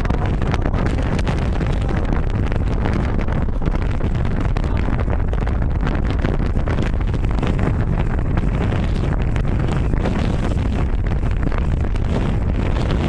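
Strong wind blasting across the microphone: a steady, loud low rumble that never lets up.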